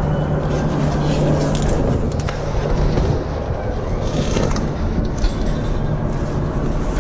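Steady low rumble of city traffic with a constant low hum under it, and a few brief knocks and rustles as the climber grips the steel.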